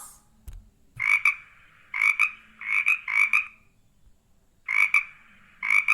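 Frog croaking: six short croaks, each made of two quick pulses, about one a second, with a pause of a second or so near the middle.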